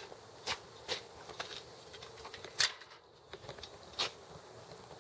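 Footsteps on a concrete patio: a few irregular soft scuffs and clicks, mixed with handling noise from the handheld camera.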